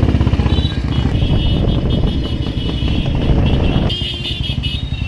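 Many motorcycle and scooter engines running together close by in a slow-moving procession, a dense rapid low pulsing. A little before four seconds the sound changes abruptly and thins, with some high steady tones over it.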